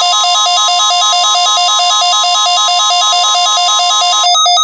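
Electronic weather-alert alarm: a harsh tone warbling rapidly back and forth between two pitches, turning into fast on-off beeping near the end. It signals the start of an NOAA Weather Radio required weekly test being received.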